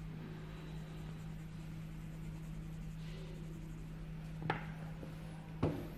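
Pencils handled on a tabletop: two sharp clicks about a second apart near the end, over a steady low hum.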